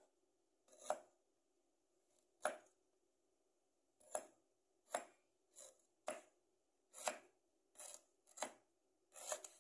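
Kitchen knife slicing ginger root on a wooden cutting board: about ten short, faint cuts, spaced unevenly.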